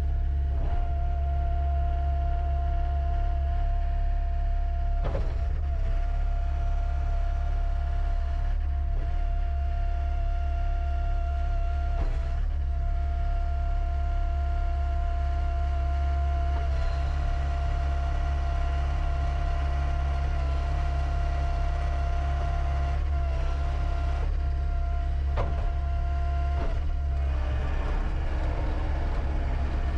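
John Deere 333E track loader's 100 hp Tier 4 diesel engine running steadily, with a constant high whine over its low drone and a few brief knocks now and then.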